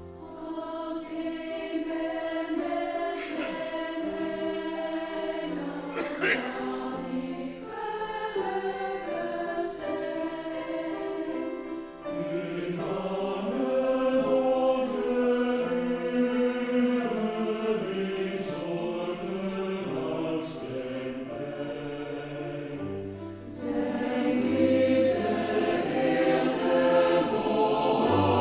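Mixed choir of men's and women's voices singing a Dutch hymn, growing louder and fuller near the end.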